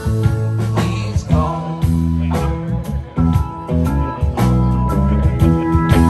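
Live rock band playing, with electric guitars and bass holding notes over a steady drum-kit beat.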